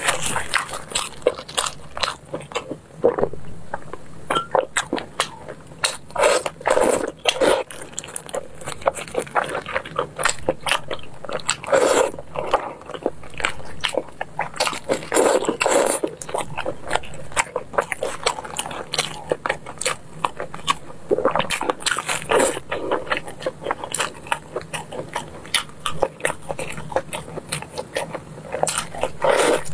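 Close-miked chewing of braised pork hock: a steady run of irregular wet mouth clicks and smacks as the meat and skin are bitten and chewed.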